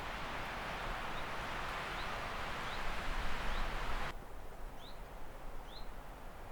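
A bird repeating a short, high, rising chirp about once a second over a steady hiss, which cuts off abruptly about four seconds in.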